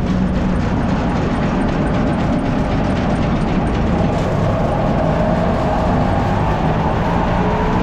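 Maize grain dryer machinery running: a loud, steady mechanical drone with a low hum, and a higher whine that comes up about halfway through.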